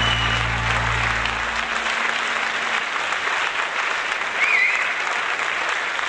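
Audience applauding at the end of a song, with a short whistle about four and a half seconds in. The band's last chord rings underneath and fades out in the first second and a half.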